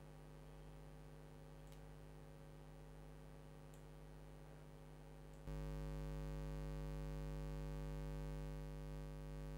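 Steady electrical hum, a buzz of many evenly spaced tones, stepping up louder about five and a half seconds in.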